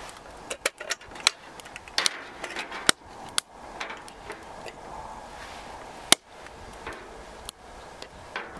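Irregular sharp clicks and knocks of hard objects being handled, about eight in all with uneven gaps, the loudest about six seconds in.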